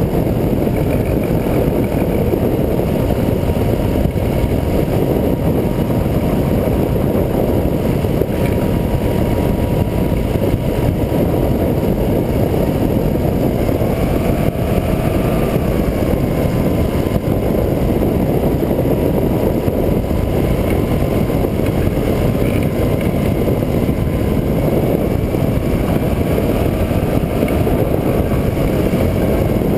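Rotax 503 two-cylinder two-stroke engine of an ultralight trike running steadily in flight, a loud continuous drone whose pitch drifts slightly up and down a few times.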